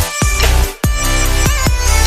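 Electronic background music with a heavy bass and sharp beat hits, briefly dropping out about a second in.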